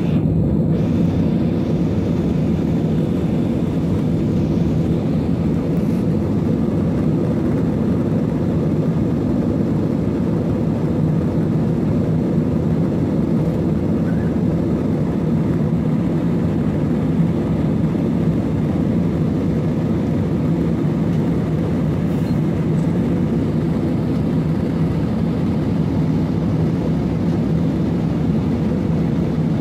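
Cabin noise of an Airbus A320-family airliner in flight: the steady drone of its jet engines and rushing air heard from a window seat, with an even low hum running under it.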